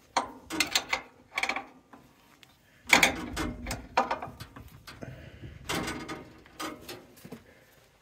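Metal wrench clicking and scraping on the bolts of a sawmill's engine mounting plate in several short bursts, as the engine is shifted to tension and align the drive belt.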